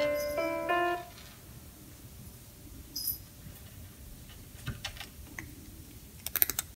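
Piano notes from the SocialCat feeder's small LittleBits synth speaker, set off by its motion trigger, ending about a second in. Afterwards the sound drops low, with scattered small clicks and taps and a quick run of clicks near the end.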